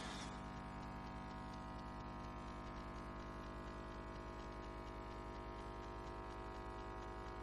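Faint steady electrical hum with many overtones, the kind of mains hum picked up by a church sound system's open microphones, with a faint regular ticking over it.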